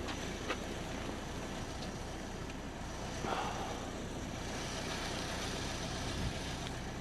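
Steady low rumble of motor-vehicle noise, with a few faint light knocks near the start.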